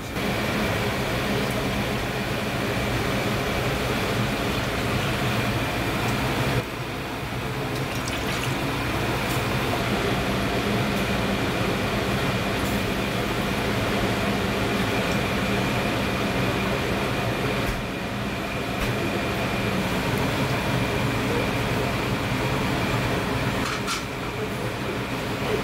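Liquid poured from a plastic bottle into a ladle over a pot of broth, over a steady mechanical hum with a thin high whine.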